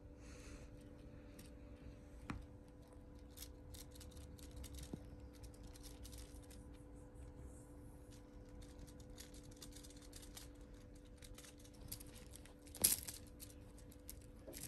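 Faint rustling of sheer organza fabric as a cat shifts and paws about in it, with small scattered ticks and one louder rustle near the end. A faint steady hum runs underneath.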